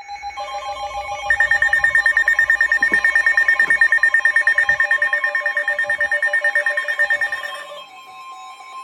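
Electronic emergency-alert tones announcing a severe thunderstorm warning: a chord of several steady pitches pulsing rapidly, several times a second, that gives way near the end to a single steady tone.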